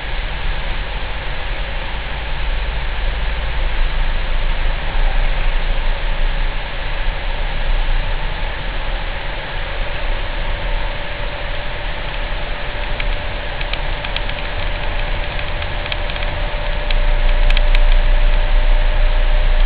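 Steady engine and road noise inside the cabin of a Citroen C4 Grand Picasso, under a deep low hum that gets louder near the end. The owner describes this strange 28 Hz humming noise as coming from the car.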